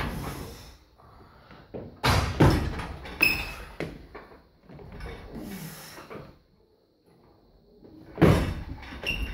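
Loaded Olympic barbell with bumper plates during a jerk: thuds of the lifter's feet and the plates clanking and rattling on the bar about two seconds in, with short metallic rings. Near the end comes another heavy clank and rattle as the bar moves again.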